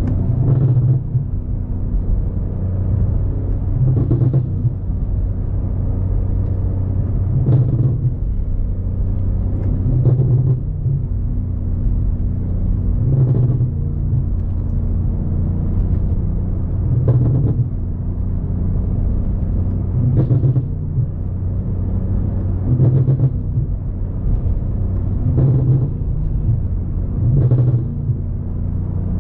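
BMW M5 Competition's twin-turbo V8 running at a steady low cruise, a constant low drone from the exhaust. About every three seconds it is broken by a short burst of exhaust burbles.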